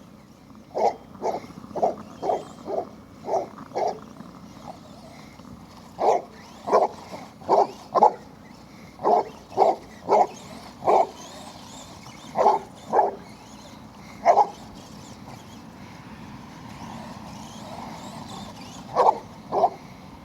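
Basset hound barking in quick runs of short barks, about twenty in all, with pauses between the runs, over a steady low background noise.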